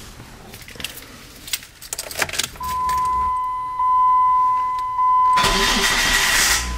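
Keys jingle and click in the ignition. A steady high warning tone sounds for about three seconds, then the 2002 Dodge Neon's four-cylinder engine cranks on the starter and catches near the end, settling into a low idle.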